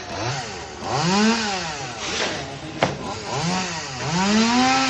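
Chainsaw engine revving, its pitch rising and falling in several swells, with a single sharp click a little before three seconds in.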